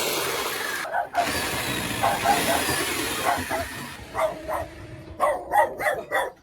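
A steady rushing noise that fades after about four seconds, with a dog barking repeatedly over it, the barks loudest and quickest near the end.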